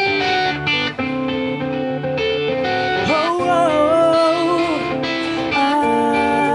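Live blues-rock band playing an instrumental intro led by guitar. About three seconds in, a long wavering note enters.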